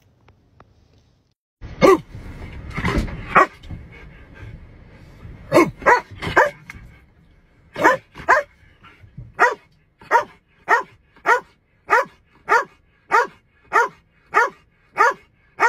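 Dog barking. A few loud barks come with a burst of noise about two seconds in. After that a police K9 dog in a patrol vehicle's rear cage barks in an even, repeated run, about one and a half barks a second.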